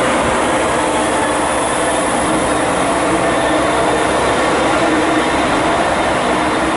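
KiHa 47 diesel railcar moving through a station, its diesel engine and wheels running steadily.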